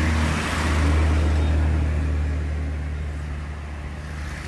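A vehicle engine running with a steady low hum under wind and road noise. The noise dies away from about two seconds in, as the vehicle slows.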